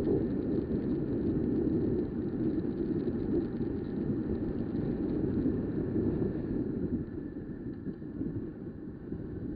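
Wind buffeting the microphone on a moving motorcycle: a low rushing noise with no clear engine note, easing a little about seven seconds in.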